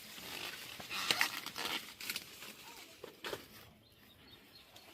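Sweet corn leaves and husks rustling and crackling as ears are picked, in a few short bursts, loudest about a second in.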